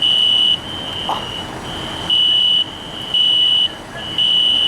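Building fire alarm horns sounding: a high, steady electronic tone pulsing loud for about half a second roughly once a second, with a fainter tone continuing between the pulses.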